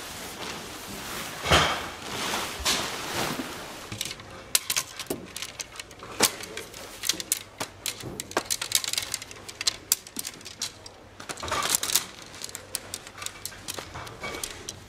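Tent fabric rustling as it is handled, then from about four seconds in a rapid, irregular run of sharp clicks and taps as slender tent poles knock against one another and the floor.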